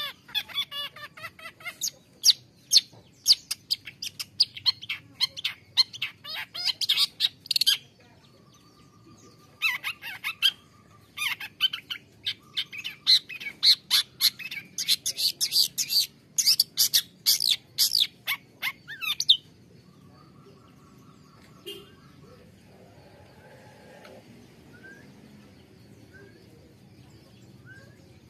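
Long-tailed shrike (cendet) singing a rapid run of sharp, high chattering notes. It breaks off for about two seconds, resumes, then stops abruptly about two-thirds of the way through, leaving only faint background with a few distant chirps.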